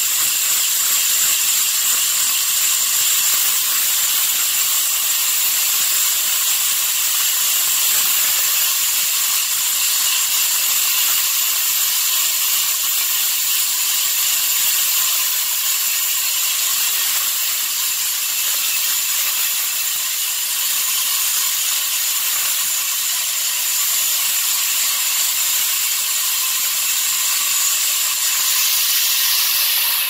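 Horizontal band sawmill blade ripping lengthwise through a large log: a loud, steady high hiss of cutting with a thin high whine running through it. The sound drops off abruptly at the very end.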